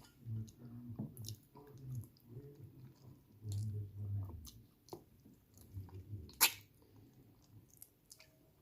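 A person chewing on a cooked chicken foot, with irregular soft mouth sounds and small clicks. One sharp click comes about two-thirds of the way through.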